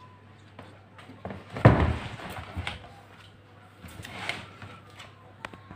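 Wooden subwoofer cabinet of a Philips 5.1 home theatre being handled: a heavy thud about a second and a half in, then several smaller knocks and clicks, and a scraping rustle a little after four seconds.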